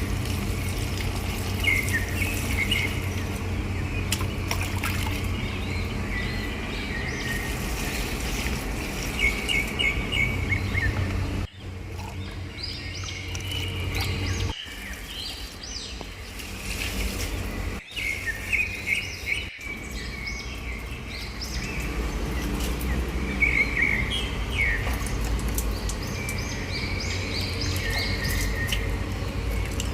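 Small birds chirping in short repeated calls over a steady low rumble, with a few sudden breaks in the sound.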